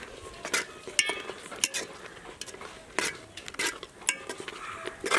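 Metal ladle stirring and mashing cooked gongura leaves in a cooking pot, clinking and scraping against the pot's sides in short sharp knocks roughly every half second to second.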